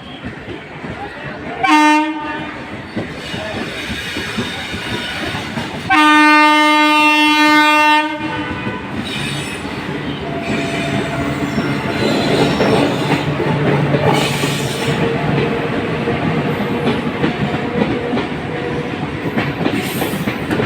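Passenger train horn giving a short blast about two seconds in, then a longer blast of about two seconds a few seconds later. Afterwards the train runs with a steady rumble and wheels clattering over rail joints, growing louder.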